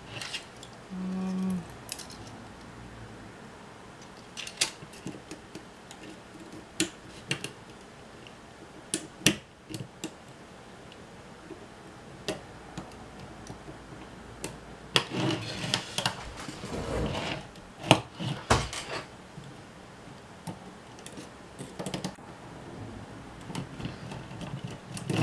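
Small metal parts of a camcorder tape mechanism clicking, tapping and scraping as it is handled and taken apart with a screwdriver: scattered sharp clicks, a short low hum about a second in, and a denser run of rattling and scraping past the middle.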